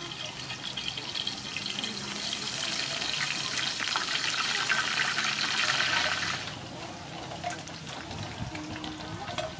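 Battered shrimp fritters deep-frying in a wok of hot oil: a dense sizzling crackle that grows louder and then cuts off about six and a half seconds in.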